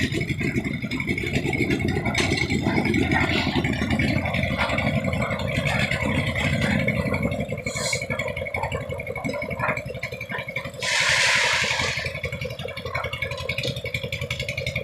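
A concrete mixer machine's engine running steadily with fast low pulsing and clattering. About eleven seconds in there is a loud hiss lasting about a second.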